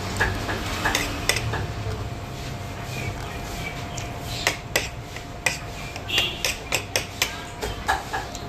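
Cutlery clinking against plates and dishes: a run of short, sharp clicks, coming more thickly in the second half, over a steady background hum.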